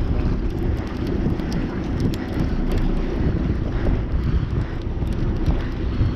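Wind buffeting the microphone in a steady rumble, with faint irregular high clicks as a conventional fishing reel is cranked to bring in a hooked fish.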